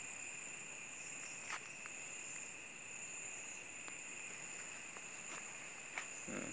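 Night insect chorus of crickets, a steady unbroken trill at two high pitches, with a few faint clicks and a soft knock near the end.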